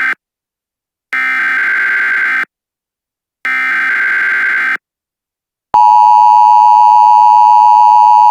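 Emergency Alert System header: the end of one buzzy digital data burst, then two more bursts of about a second each with a second's silence between them. About a second after the last burst, the steady, louder two-tone EAS attention signal starts.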